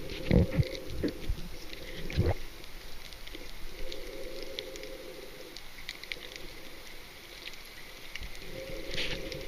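Underwater ambience at a coral reef: a constant scatter of faint crackling clicks, with a few short hums and two low thumps in the first few seconds.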